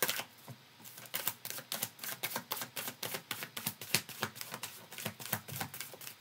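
A deck of tarot cards being shuffled by hand: quick, uneven clicks and slaps as the cards strike each other, several a second.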